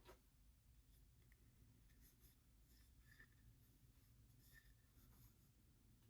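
Near silence: room tone with a low hum and a few faint rustles and small ticks of handling.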